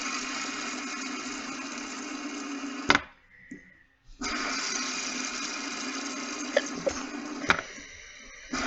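A fidget spinner whirring on its ball bearing, a steady buzzing hum. About three seconds in it stops with a sharp click, and after about a second it whirs again, with a few small clicks near the end.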